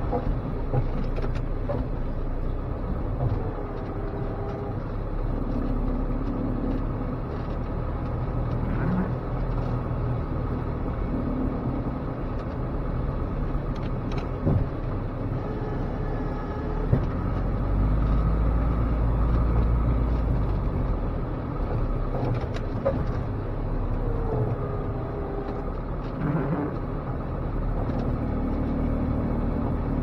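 1987 Dodge Raider's 2.6-liter carbureted four-cylinder engine running steadily, heard from inside the cab as the truck moves through snow. Two sharp knocks come around the middle, and the low rumble grows heavier for a couple of seconds soon after.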